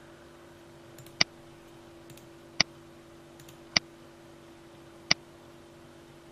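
Four computer mouse clicks, spaced about a second and a half apart, over a faint steady hum.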